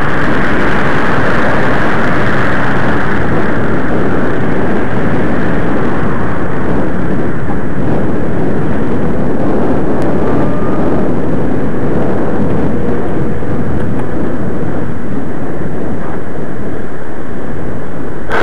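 Steady loud rushing noise of wind buffeting the microphone, with road rumble, from a camera riding on a moving bicycle.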